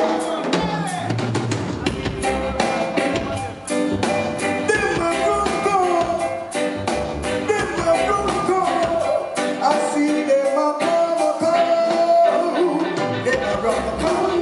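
Live reggae band music with a drum kit keeping the beat and singing over it.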